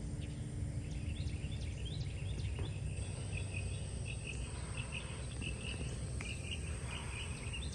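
Many small birds chirping in quick short notes over a steady low rumble.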